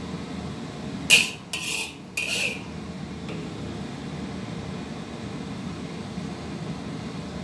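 A utensil scrapes three times in quick succession against a ceramic plate of stir-fried greens, about a second in, over a steady low hum.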